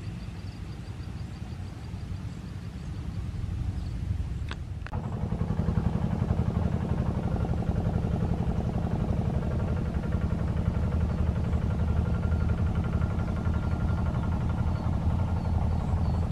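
A vehicle engine running steadily, a low drone that becomes louder after a sharp click about five seconds in.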